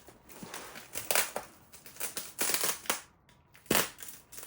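Plastic packing material, bubble wrap and wrapping, being handled and crinkled in a run of irregular short crackling rustles.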